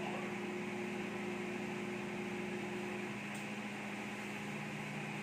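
Whirlpool countertop microwave oven running while it heats food: a steady hum and whir, with one of its tones dropping out about three seconds in.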